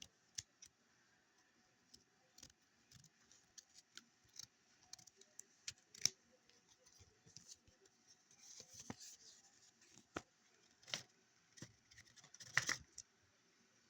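Faint handling of a phone's retail box and packaging: scattered clicks, taps and short scrapes, with a rustling stretch about eight to nine seconds in and the loudest cluster of clicks near the end.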